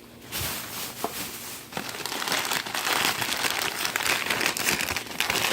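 Plastic packaging crinkling as it is handled, growing louder from about two seconds in.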